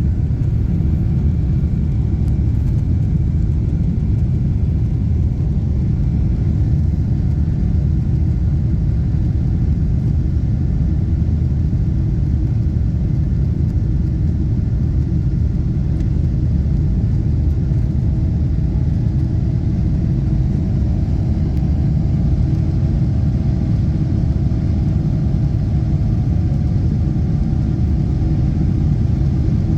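Steady low rumble of a jet airliner's engines and airflow, heard from inside the passenger cabin, with a faint steady hum above it.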